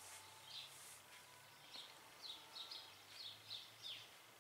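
Faint bird chirps coming in through an open window: a string of short, high chirps, some in quick pairs, one with a falling sweep near the end, over a faint low hum.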